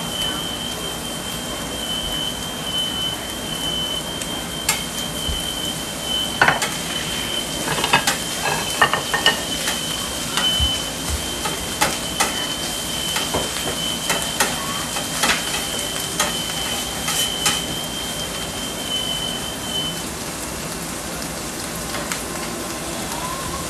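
Food sizzling on a steel flat-top griddle over gas burners, with a metal spatula clicking and scraping against the plate, most busily from about six to ten seconds in. A thin steady high tone runs underneath and stops about twenty seconds in.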